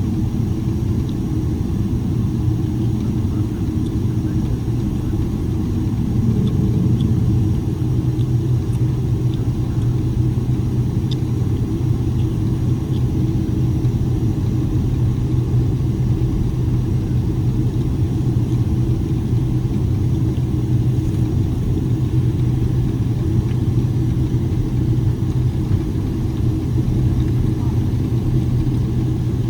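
Steady cabin rumble of a Boeing 777-300ER on the ground, with the low hum of its GE90 engines running, heard from inside the passenger cabin. It swells slightly about six seconds in.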